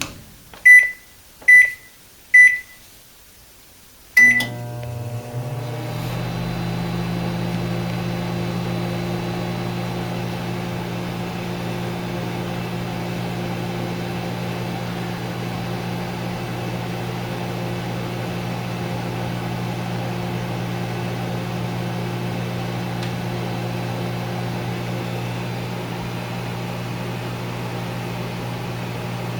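Microwave oven keypad beeping three times as the cooking time is entered, then a fourth beep about four seconds in as it starts. The oven then runs with a steady low electrical hum.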